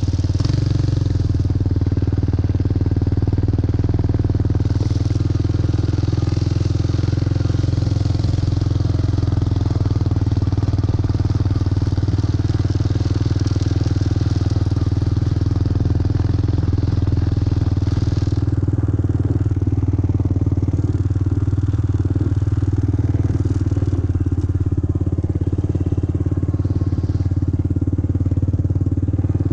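Four-wheeler (ATV) engine running steadily, with no revving, and a hiss on top that drops away about two-thirds of the way through.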